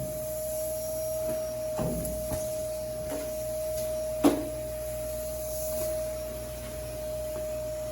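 Steady machine hum carrying one constant mid-pitched tone, with a few knocks of handling, the loudest about four seconds in.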